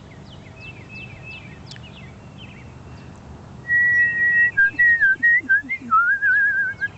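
Faint chirps of small birds, then about halfway through a person whistling loudly to the birds: one long steady note followed by shorter sliding notes and a wavering trill.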